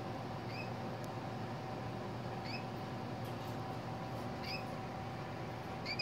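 Cockatiel giving short chirps, four in all about two seconds apart, over a steady hum.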